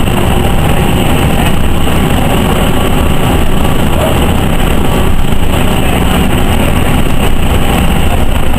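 NovaBUS RTS transit bus driving along, heard from inside the passenger cabin: steady engine and road noise, strongest in the low range, with no sharp events.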